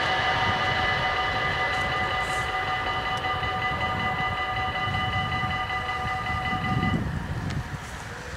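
Dutch level-crossing bells ringing steadily while the half barriers rise, then cutting off about seven seconds in as the barriers reach the top and the crossing clears. Underneath, a broad rumble slowly fades.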